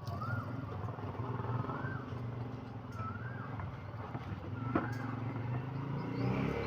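Washing machine motor running with a steady low electrical hum. A short rising-and-falling chirp recurs about every second and a half, and there is one sharp click about five seconds in.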